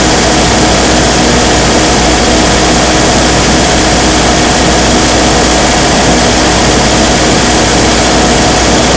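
Multiquip DCA70 generator's Isuzu 4JJ1X four-cylinder diesel engine running steadily at its governed speed, loud and unchanging.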